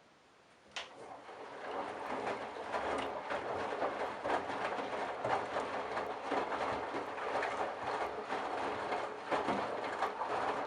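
Candy Bianca washing machine starting up again after a quiet pause: a click about a second in, then a steady running noise that builds over a second or two, full of small rattles and clicks.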